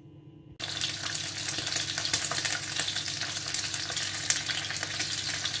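Bacon-wrapped beef fillet steaks laid into a pan of hot oil, breaking suddenly into a steady crackling sizzle about half a second in as they begin to sear.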